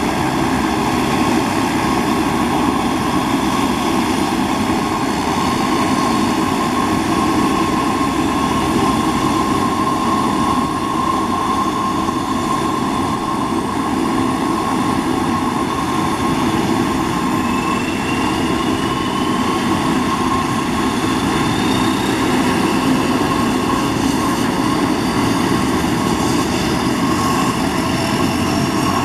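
Convair 580's Allison 501 turboprop engines running on the ground: a steady propeller drone with a turbine whine. In the second half a higher whine rises slowly in pitch as an engine spools up during the start.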